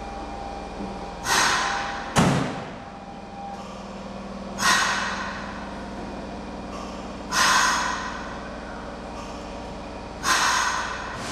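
Nagoya subway 2000 series train standing at the platform, compressed air hissing out in four sharp bursts about three seconds apart, each fading within a second. A steady hum from the train's onboard equipment runs underneath, and a single heavy thump sounds about two seconds in.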